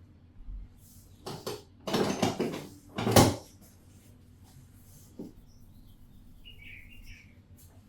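Head massage sounds: hands rubbing and patting on the head and hair, heard as three short rustling bursts about one, two and three seconds in, the last the loudest.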